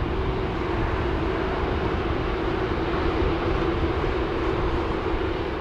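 Boeing 747-400 freighter's four jet engines at take-off thrust on the take-off roll: a steady roar with a strong droning tone and a deep rumble underneath.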